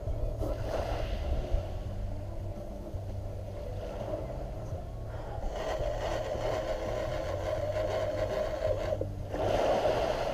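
Heavy fishing reel being cranked, a steady whirring that gains line on a hooked shark. It pauses briefly about five seconds in and again near nine seconds.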